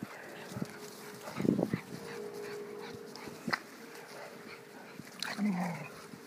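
A Boston terrier and a lurcher playing rough together, giving a few short dog vocalisations: one burst about a second and a half in and another near the end.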